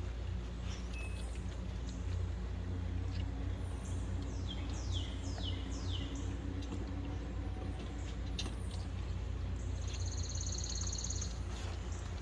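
Wild birds calling over a steady low rumble: a run of quick falling whistles about four to six seconds in, and a buzzy high trill near the end.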